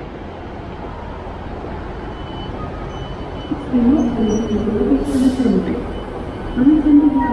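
Railway station ambience under a large train shed: a steady rumble of trains and concourse, with a short hiss of air about five seconds in. From about halfway, a louder wavering tone that swings up and down in pitch joins it.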